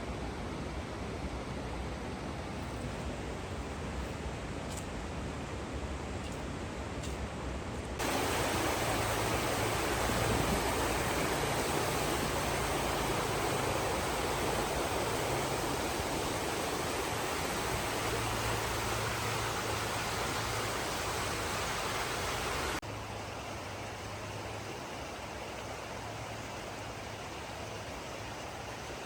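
Steady rushing outdoor ambience with no distinct events. It jumps abruptly louder and brighter about eight seconds in and drops back just as suddenly about twenty-three seconds in.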